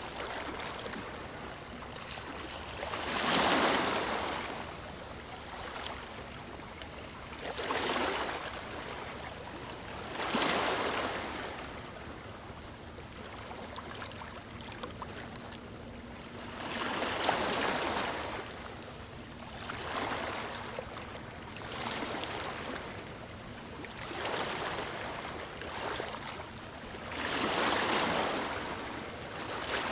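Ocean surf breaking on a beach: a steady wash of water that swells into about eight surges of breaking waves a few seconds apart, some stronger than others.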